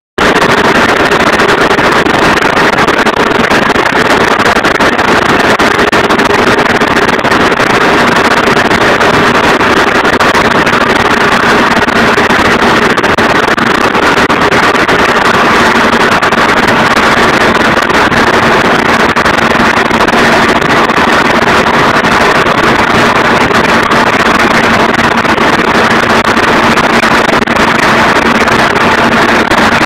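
Slurry tower mixer running and agitating a slurry store: a loud, steady mechanical drone with a constant hum, mixed with the churn of the liquid. A lower hum grows stronger about two-thirds of the way through.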